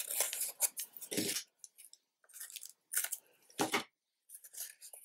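Adhesive construction tape being handled by fingers: a run of short crackly, scratchy rustles as it is pressed, peeled and pulled, the loudest about a second in and again past three and a half seconds.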